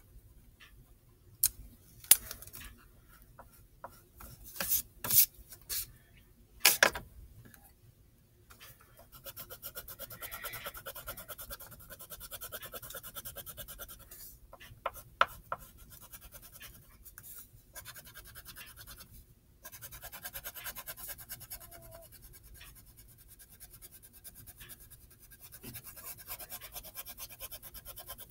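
A few sharp clicks and taps, then a pencil scratching on paper in fast back-and-forth shading strokes, in long runs with short pauses.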